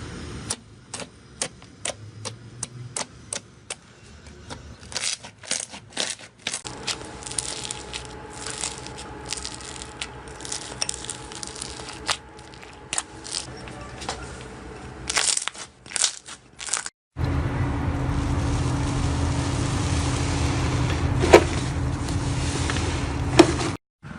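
Slime being handled in several short clips: many sharp clicks and crackles, then a louder, steady hiss with a low hum and two sharp pops near the end.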